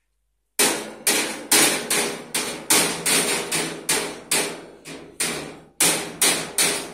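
A small child banging on a metal convector heater with a hand-held object: about sixteen knocks in quick, uneven succession, each ringing briefly.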